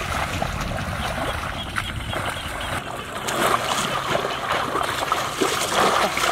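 Water and mud splashing irregularly as people wade through a shallow flooded rice paddy and grope in it by hand for fish.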